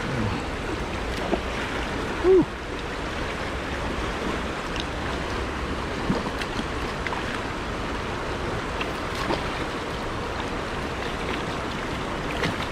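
Creek water running steadily over a rocky riffle. About two seconds in there is one brief, loud, pitched blip, with a few faint ticks scattered through.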